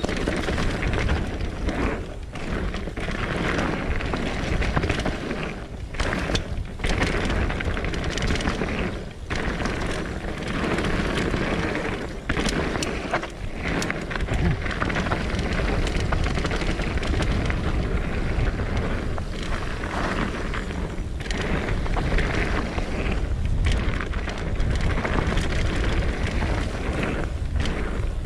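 Wind buffeting an action camera's microphone as a mountain bike rolls fast down a dirt singletrack, with the rumble of the knobbly tyres on the dirt; the noise surges and eases throughout.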